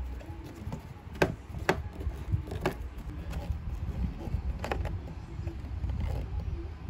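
Hand screwdriver working a screw into a plastic dashboard mount, with about four sharp clicks and knocks of metal and plastic over a low steady rumble.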